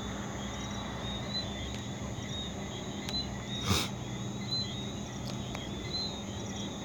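Crickets chirping in the background, short high chirps repeating roughly every second, over a steady low hum. A brief scuff or tap comes a little past the middle.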